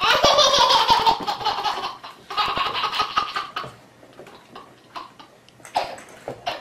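A baby laughing hard in pulsing belly laughs: two long bouts in the first few seconds, then a few shorter bursts near the end.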